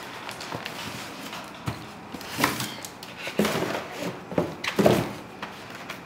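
A cardboard box being opened by hand and a styrofoam box slid out of it and set down: irregular rustling, scraping and a few light knocks, the loudest about five seconds in.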